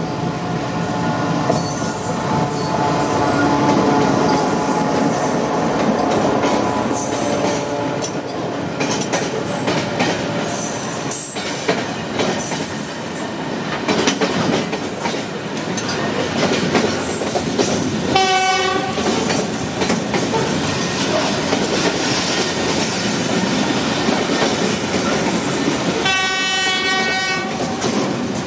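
Diesel-hauled freight train passing close by: wagons rolling with steady wheel clatter and thin high wheel squeals, with the locomotive engine heard at first. The horn gives a short blast about two-thirds of the way through and a longer one of about two seconds near the end.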